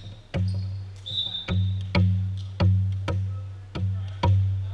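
A volleyball bounced repeatedly on a wooden gym floor: about six bounces at uneven spacing, each followed by a low ringing hum that dies away.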